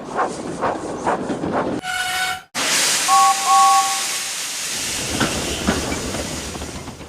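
Steam locomotive sound effects. Four quick chuffs and a short whistle note give way to a loud gush of escaping steam. Two short two-tone whistle toots sound over the hiss, and the hiss then slowly fades.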